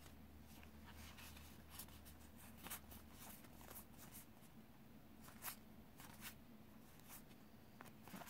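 Near silence, with faint scattered clicks and slides of trading cards being flipped through by hand.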